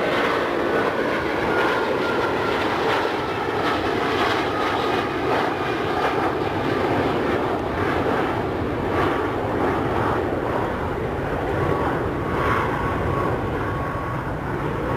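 Jet airliner engines running loud and steady as the aircraft passes, with a faint whine that slowly falls in pitch.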